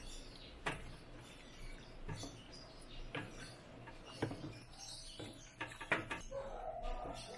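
Wooden spatula stirring a thick stew in a stainless steel wok, with light knocks and scrapes against the pan about once a second.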